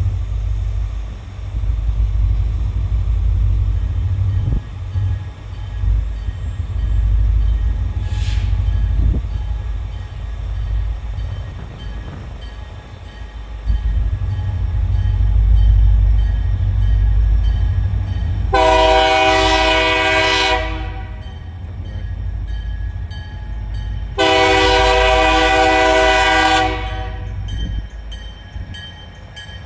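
Freight train's diesel locomotives running with a steady low rumble, and the locomotive air horn sounding a chord in two long blasts, the first about two-thirds of the way through and the second a few seconds later: the opening of the grade-crossing signal.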